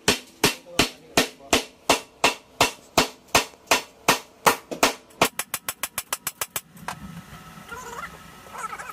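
Hand hammer striking metal in steady blows, about three a second, then a quicker run of lighter taps about five seconds in before they stop. The blows are knocking a corroded stringer loose from an Airbus A320's cargo-hold structure.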